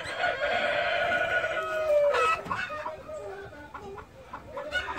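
A cock gamebird crowing: one long call of about two seconds that drops in pitch at its end, followed by a few short clucking calls.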